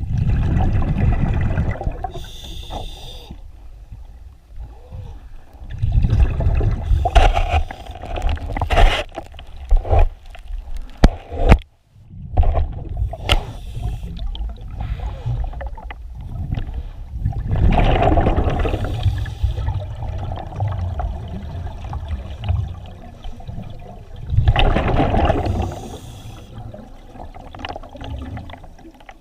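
Water gurgling and sloshing around a diver in a flooded cave passage, coming in surges every few seconds. Several sharp knocks and scrapes of gear about ten seconds in.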